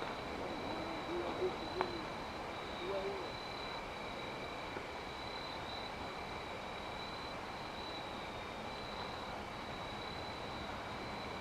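Outdoor ambience by the water: a steady high-pitched insect trill over a constant rushing background, with a few faint low warbling sounds in the first few seconds.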